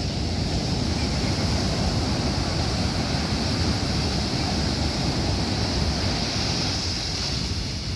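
Ocean surf with wind buffeting the microphone: a steady, even rush of water and wind with no single wave crash standing out.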